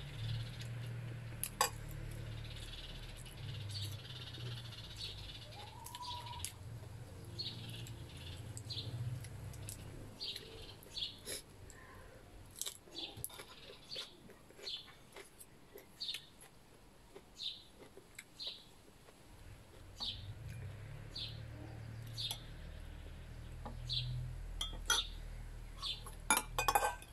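Metal fork and spoon clinking and scraping against ceramic plates while eating, with a quick run of clinks near the end. Short high-pitched sounds come about once a second in between.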